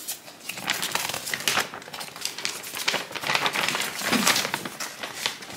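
Crinkling and rustling of a sheet of tear-proof paper, a cross stitch paper pattern, being handled, folded and tugged, in irregular bursts.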